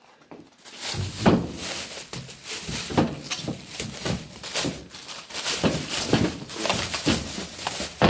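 A bag rustling and crinkling in irregular bursts as duct tape and dryer vent tubing are packed into it, with handling knocks.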